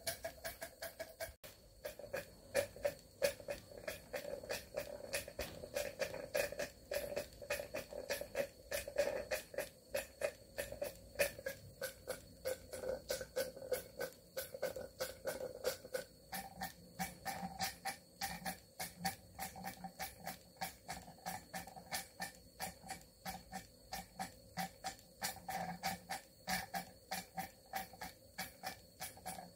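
Cotswold Heritage Cirrus model steam beam engine running steadily, its valve gear and exhaust making a fast, even ticking beat. Under it is a steady hum that steps up in pitch about halfway through.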